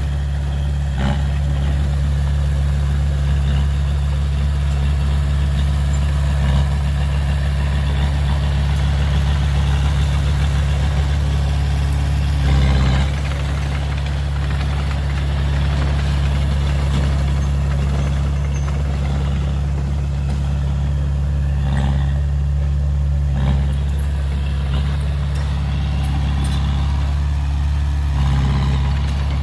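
A heavy earth-moving machine's diesel engine runs steadily at a low idle-like hum. It briefly grows louder a few times, most clearly about 13 seconds in.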